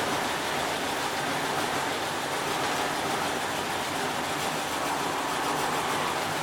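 Esatto EFLW9 front-loading washing machine running, a steady, even noise that holds level throughout.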